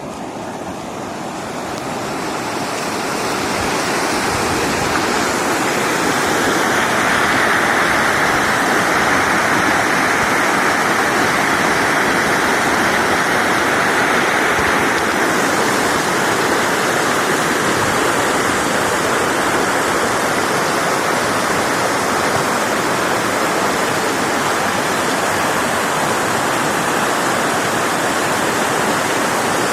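Steady rush of flowing water, swelling over the first few seconds and then holding even.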